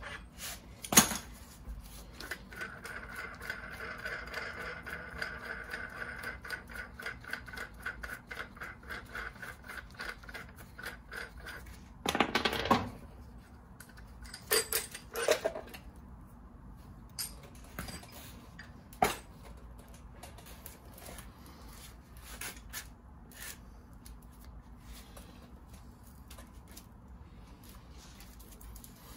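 A ratchet clicking steadily for about ten seconds as the forcing screw of a bearing press kit is backed off the trailing arm after the new bushing is seated. It is followed by several metallic clunks and knocks as the press cups and screw are pulled off the arm and set down, then lighter clicks.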